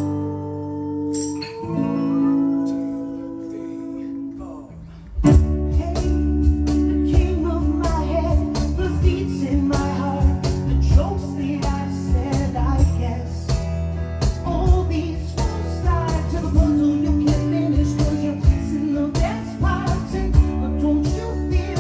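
Live acoustic rock band playing with singing. Held chords ring for about five seconds, then the band comes in loudly with rhythmic strummed acoustic guitars under the vocals.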